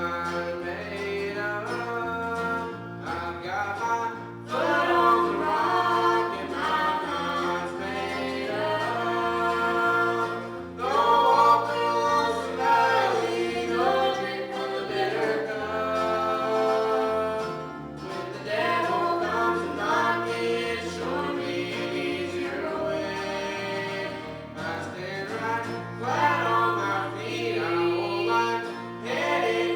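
Gospel group singing with guitar accompaniment, several voices over a steady walking line of low notes.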